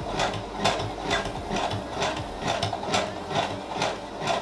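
Sewing machine stitching at a slow, even pace, about three stitches a second, its needle piercing a hair weft with each stroke.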